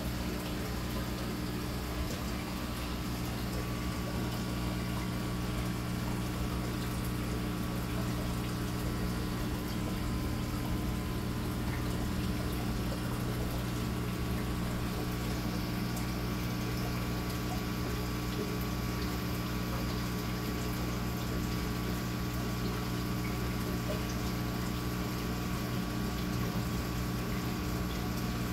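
Small submersible aquarium pump running steadily underwater, a constant low hum with a wash of circulating water.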